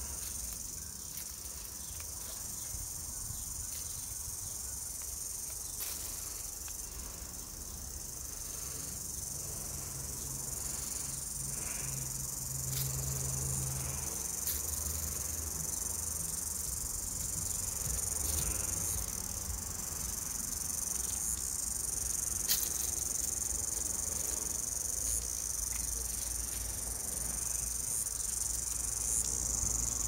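Cicadas singing: a steady, high-pitched drone that does not let up, over a low rumble.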